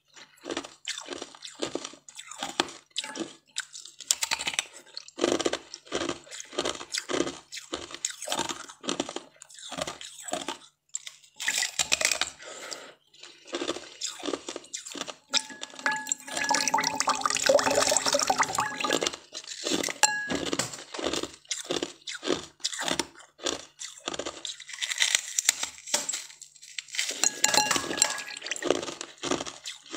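Close-up crunching of frozen pink-tinted ice being bitten and chewed: many sharp cracks and crunches as pieces break between the teeth, with wet chewing, and a stretch of rapid, continuous crunching around the middle.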